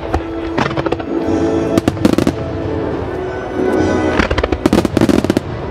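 Starmine fireworks: aerial shells and ground-fired comets going off in rapid clusters of sharp bangs over music set to the display.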